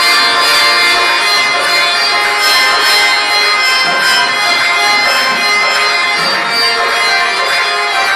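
Live qawwali music from a seated ensemble, carried by sustained reedy harmonium chords that hold steady without a break, heard at a distance in a large hall.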